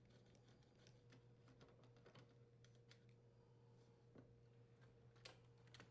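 Near silence: faint room hum with a few scattered light clicks, the loudest about five seconds in.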